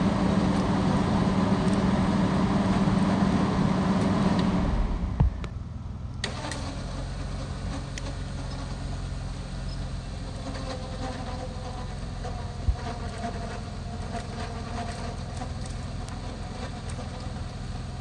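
Truck-mounted winch running steadily under load, pulling a cable through snatch blocks, then stopping suddenly about five seconds in. An engine idles steadily afterwards, with a few sharp clicks or knocks.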